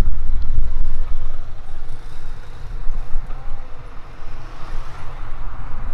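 Street traffic noise heard from a moving bicycle, with a heavy, uneven low rumble of wind on the microphone, loudest in the first couple of seconds and easing off around the middle.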